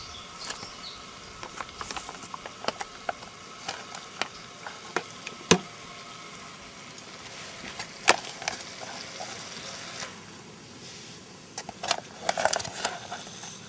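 A spoon clinking and scraping against a foil food pouch and a small stainless steel pan as omelet mix is scooped into it, with a few sharp clinks and a busier run of scraping near the end. Beneath it, a steady sizzling hiss from the pan on a canister gas stove.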